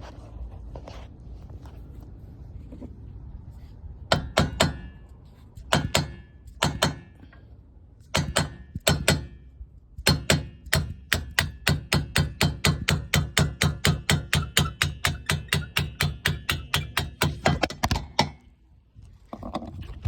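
Hammer striking a steel punch to drive out the rear brake pad retaining pin on a 2009 Audi Q7 caliper, each blow ringing sharply. A few separate strikes come first, then a steady run of about four blows a second for some eight seconds, which stops near the end.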